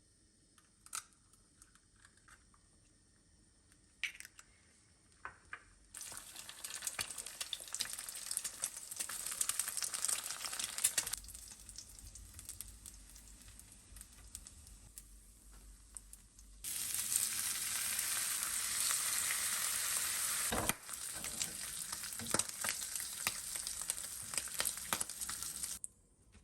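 Bacon sizzling in a frying pan. A few light clicks and taps come first, then sizzling starts about six seconds in, eases off for a while, and returns louder before it cuts off abruptly near the end.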